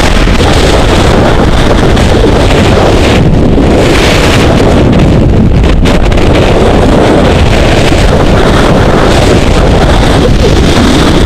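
Freefall airflow blasting across the microphone of a camera worn by a skydiver: a loud, steady rush of wind noise, near clipping, with no breaks.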